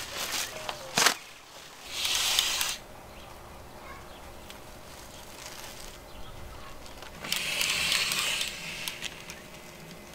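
Thin plastic masking film rustling and crinkling in two bursts, one about two seconds in and a longer one from about seven to nine seconds, as it is pulled out and spread over a window. A single sharp click about a second in.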